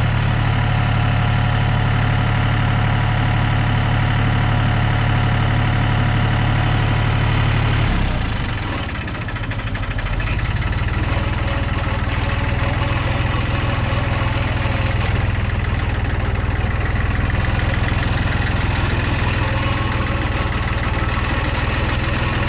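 John Deere backhoe tractor's engine running steadily. About eight seconds in its note drops and the level dips briefly, then it settles back into a steady run.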